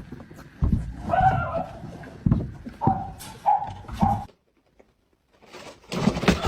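A dog giving short whines and yips, four of them in the first four seconds, then a cut to about a second of silence.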